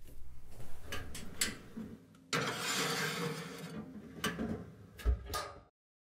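Clicks from an electric oven's control knobs being turned, then scraping and clacking as a ceramic tile is slid onto the metal oven rack, with a heavier knock near the end before the sound cuts off suddenly.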